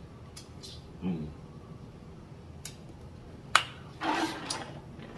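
Mouth sounds of eating, with wet smacks and clicks of lips and finger-licking, a short hummed "mm" about a second in and a sharp click about three and a half seconds in. Near the end comes a breathy sound.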